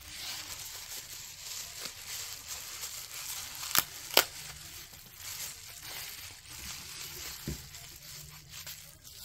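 Plastic bubble wrap crinkling and rustling as it is crumpled and unwrapped by hand, with two sharp clicks a little under halfway through.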